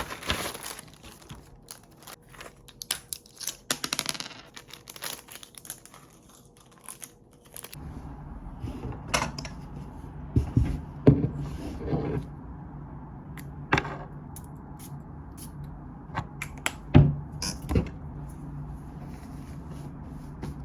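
Crinkling, rustling handling noise with many small clicks, then, about eight seconds in, a steady low hum with scattered knocks and taps.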